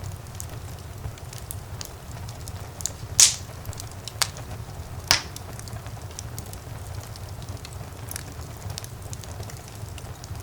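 Wood fire burning in a fireplace, crackling: a steady low rumble of flames with scattered small ticks. Two loud pops come about three and five seconds in.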